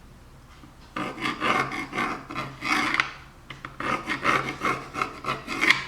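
A marking tool scraping back and forth as a line is drawn across the plastic front of a blast gate, in repeated scratchy strokes starting about a second in, with a short pause about halfway.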